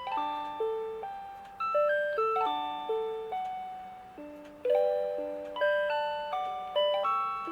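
Rhythm Clock Melody Club melody alarm clock playing a J-pop tune as an electronic chime arrangement, several clear notes at once, each striking and then fading, about one to two new notes a second.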